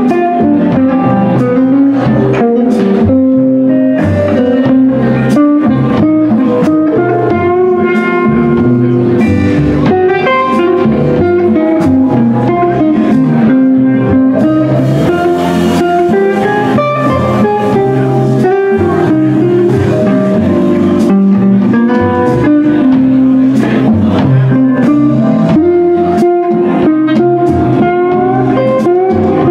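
Live blues band playing an instrumental passage: an electric guitar takes the lead line over walking upright bass, a drum kit and keyboard.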